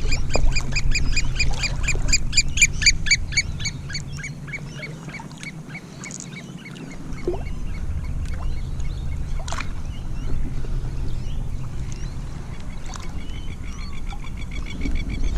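A bird calling in a rapid series of short, pitched notes, about six a second, loud for the first few seconds, then fading and coming back faintly near the end, over a low rumble.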